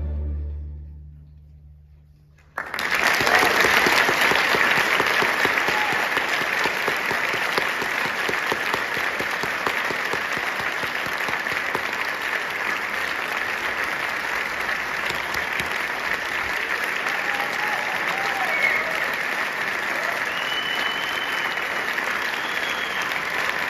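The final chord of a combined orchestra and choir dies away into a brief hush, then the audience starts applauding suddenly about two and a half seconds in and keeps clapping steadily, with a few cheers and whistles near the end.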